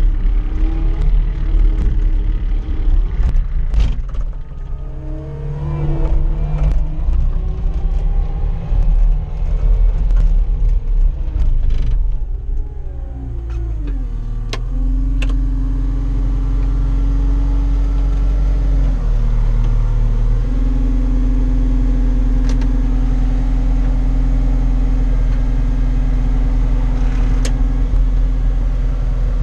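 Caterpillar 259D compact track loader's diesel engine running, heard from inside the cab. Over the first half its pitch wanders up and down under scattered clatters and knocks, dips about halfway, then settles into a steady drone that steps up in pitch about two-thirds through, with an occasional sharp click.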